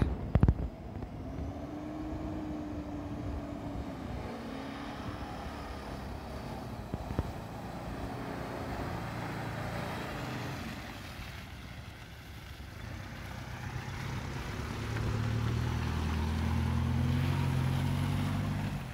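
Mitsubishi L200 Triton pickup's engine running under throttle as the truck pulls through deep mud. It gets louder over the last few seconds as the pickup comes up close and passes.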